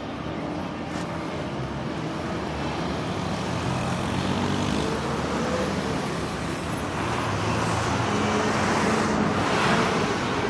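City street traffic: motor vehicle engines running, growing steadily louder, with a louder hissing swell of road noise about seven seconds in as a vehicle comes close.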